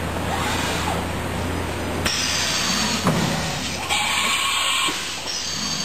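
CNC milling machine working through a tool change. A high steady whine with a couple of clunks is followed, about four seconds in, by a one-second hiss of compressed air, and the whine comes back near the end, over a constant machine hum.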